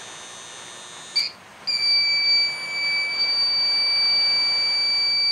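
UPS alarm beeper sounding as a real load is plugged in: a faint high whine of several tones, one short beep about a second in, then a continuous high-pitched beep from under two seconds in.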